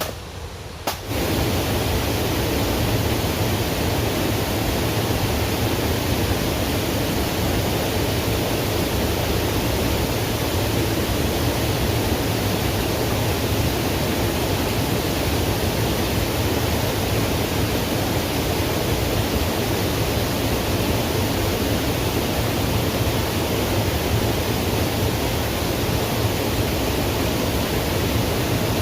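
Steady, even rushing noise that starts abruptly about a second in.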